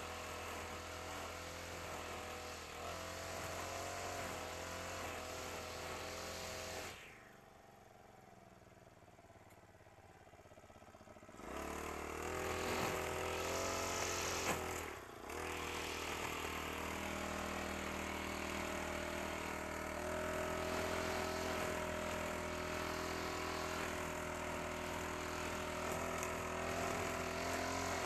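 Honda GX35 four-stroke brush cutter engine running at a steady high speed while cutting grass, its pitch wavering slightly under load. About a quarter of the way in the sound drops away for about four seconds, then the engine comes back somewhat louder.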